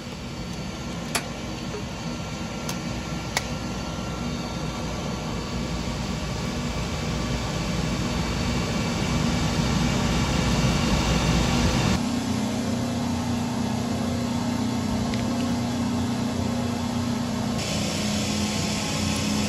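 Shoe-repair machinery running steadily. First comes an outsole stitching machine, with a few sharp clicks early on. After an abrupt change about twelve seconds in, a finishing machine's motor hums steadily, with more hiss near the end.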